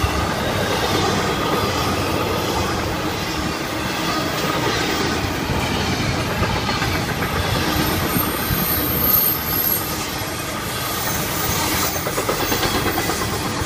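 Intermodal freight cars, double-stack well cars and trailer flatcars, rolling steadily past at speed: steel wheels rumbling and clacking over the rail, with a thin high wheel squeal about halfway through.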